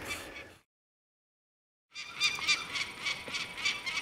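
Peregrine falcon calling: a rapid run of harsh, repeated notes, about five a second, starting after a short silence about two seconds in.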